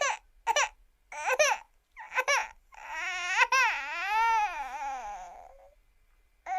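Cartoon crying sound effect: a high-pitched voice gives four short sobs, then one long wail that wavers up and down in pitch, then another short sob near the end.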